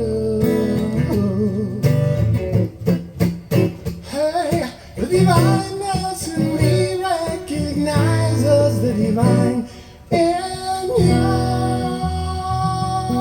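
Acoustic guitar strummed, with wordless singing held over it in long wavering notes; a quick run of strums about three seconds in and a short pause about ten seconds in before the guitar and voice carry on.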